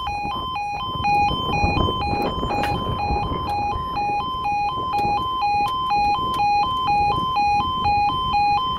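Level crossing's two-tone warning alarm, a yodel switching back and forth between a lower and a higher note about twice a second, warning of an approaching train. It cuts off abruptly just before the end.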